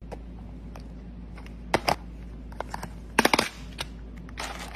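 Dry dog kibble clicking and rattling against a plastic container and a plastic scoop cup as it is handled, with two louder clusters of clicks about two and three seconds in, and a rustle of kibble shifting as the cup digs in near the end.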